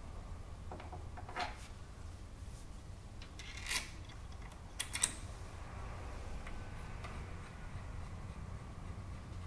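A few light metal clicks and knocks as a collet and a 5 mm drill are taken from a tool rack and pushed into a milling machine's spindle, over a low steady hum.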